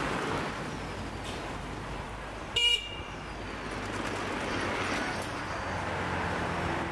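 Street ambience with a steady traffic hum, broken about two and a half seconds in by one short, loud horn beep.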